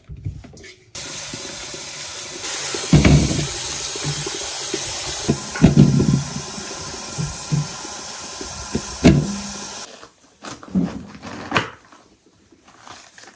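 Water running steadily, starting suddenly about a second in and stopping suddenly near ten seconds, with a few knocks and clatters of things being handled.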